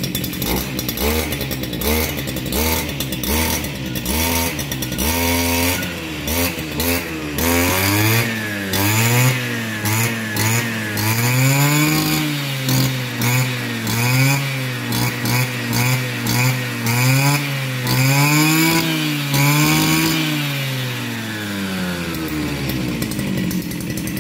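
Stihl FS230 brush cutter's two-stroke engine running: idling unevenly at first, then revved up and down over and over, about once a second, and dropping back to idle near the end.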